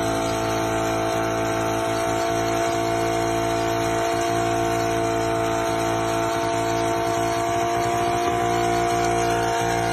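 A car engine running at a steady high speed while its engine bay burns, one constant droning pitch with hiss over it.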